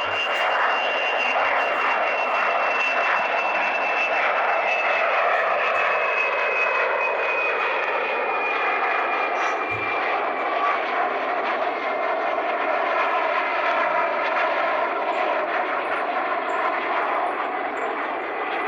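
Jet aircraft engines running with a steady loud rush, plus a high turbine whine that slowly falls in pitch and fades out about halfway through.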